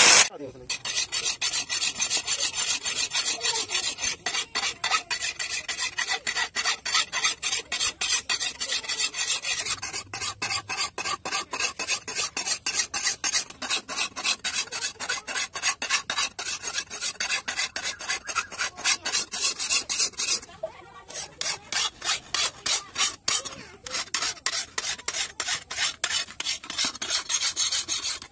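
Flat steel hand file stroked back and forth along the edge of a curved steel dao (chopper) blade to sharpen it: a steady rhythm of quick rasping strokes, with a short break about twenty seconds in.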